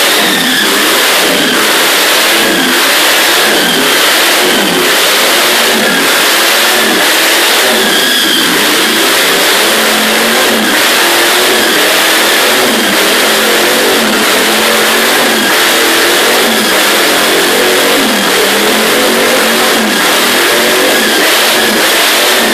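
Holden V8 engine in a ride-on mower revving hard, the revs swinging up and down over and over while its rear tyres spin in a smoky burnout.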